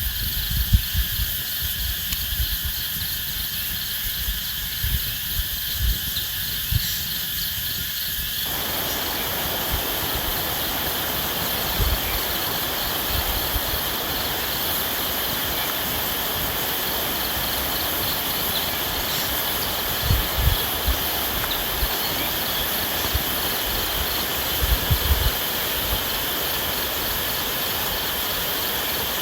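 Insects buzzing steadily in forest, with a few low knocks. About eight seconds in, a steady rushing noise joins them and runs on.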